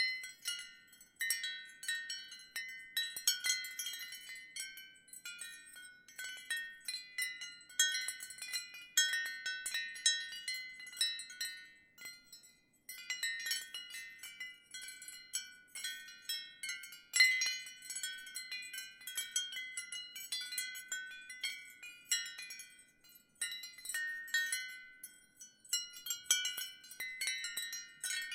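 Ceramic wind chimes tinkling lightly in a gentle breeze: irregular clusters of high, ringing notes struck one after another, with one brief lull about twelve seconds in.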